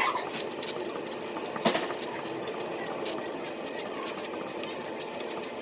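Chisel-tip Sharpie marker scraping and squeaking across paper while words are written, in many short strokes, with a louder stroke at the start and another about a second and a half in.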